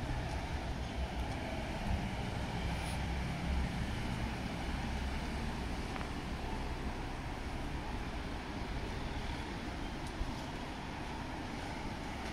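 Steady city street traffic noise, a low rumble of passing vehicles.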